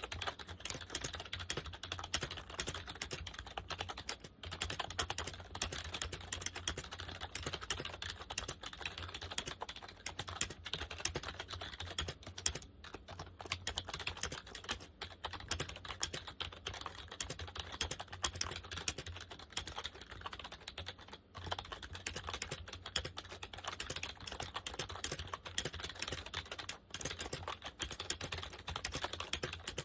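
Continuous fast typing on a Compaq KB-3923 rubber dome keyboard: a dense stream of soft key clicks, with a few brief pauses.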